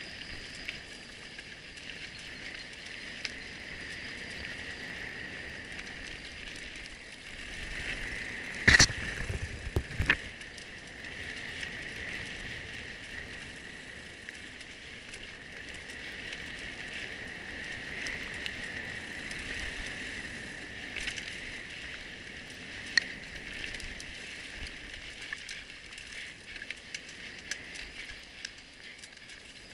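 Mountain bike riding over a rough dirt trail: tyres rolling and the frame and chain rattling, over a steady high-pitched drone. There are two hard jolts about nine and ten seconds in, and a sharp click later on.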